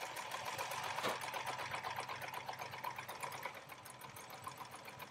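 Janome HD1000BE heavy-duty sewing machine running a straight stitch through cotton fabric: a quiet, steady, rapid ticking of the needle mechanism.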